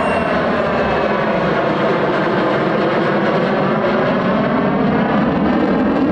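Turbofan jet engine of a Lockheed U-2 Dragon Lady running at full power as the aircraft flies past. A steady, loud jet roar whose tone slowly sweeps as the plane moves.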